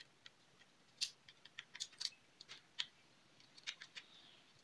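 Irregular small clicks and ticks of a small screwdriver undoing the screws of a hard drive's circuit board, metal on metal, with light handling knocks on the drive.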